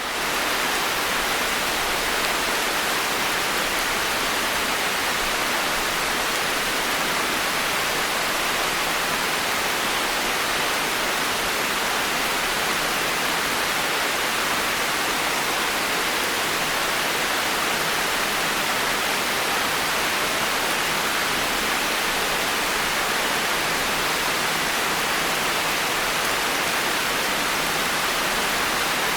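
Constant heavy rain falling on forest trees and foliage: a steady, even hiss of drops on leaves with no lulls or distinct splashes.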